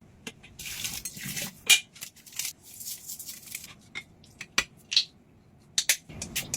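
Dishes and cutlery being washed: sharp clinks and knocks of crockery and utensils, some with a brief ring, between stretches of high hiss.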